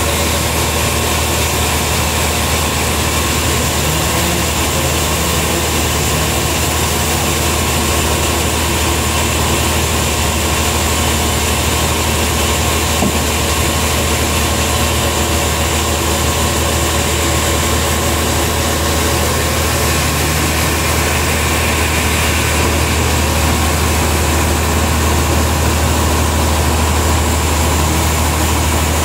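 Large band sawmill's engine running steadily at idle, not cutting, with a loud low hum and a constant mechanical drone.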